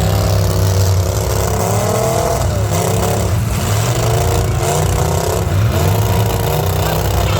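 Engines of full-size stock demolition-derby cars revving up and falling back over and over, several running at once over a steady low engine drone.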